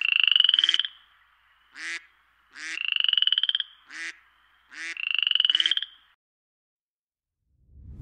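A frog croaking: three long pulsed croaks, each rising slightly in pitch, alternating with two short ones, then stopping about six seconds in.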